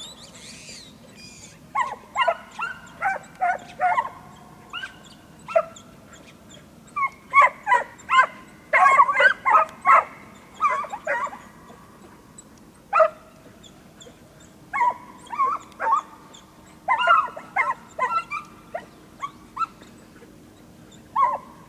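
A pack of dogs barking and yelping in quick clusters of short calls, the cries coming again and again throughout as the dogs run through the scrub.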